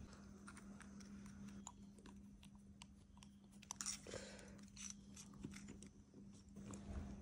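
Faint scattered clicks and small crackles of fingers handling a tiny white miniature oven part and a red hand pin vise, with a brief cluster of louder clicks about four seconds in, over a steady low hum.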